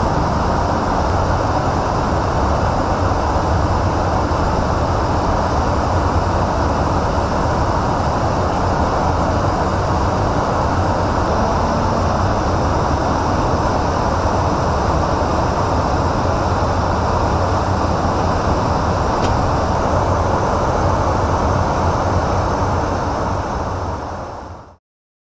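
Steady cabin noise inside an aerial refueling tanker's boom operator station: a constant drone of the engines and rushing airflow. It fades out and cuts off just before the end.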